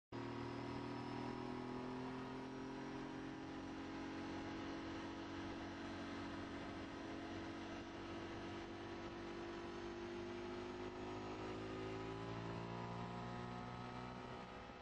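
Sport motorcycle engine running under way at fairly steady revs, with wind noise, heard from an onboard camera on the bike. The engine note climbs gradually over the last few seconds.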